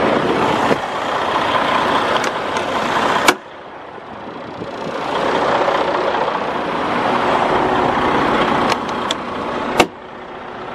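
Freightliner Cascadia semi truck's DD15 diesel pulling under acceleration, its sound swelling and then dropping off sharply, each time with a click, as the DT12 automated transmission shifts up, about three seconds in and again near the end.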